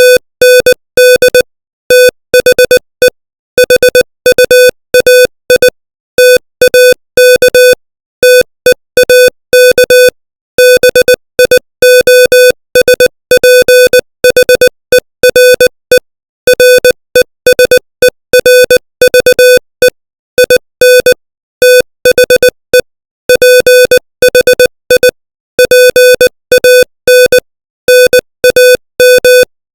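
Morse code sent at 20 words per minute as a single steady-pitched electronic tone of about 500 Hz, keyed on and off in short dits and longer dahs with short gaps between characters and words.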